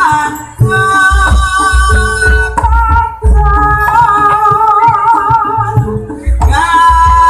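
Live Javanese jaranan music: a high, wavering melody line held over a steady, heavy beat of drums.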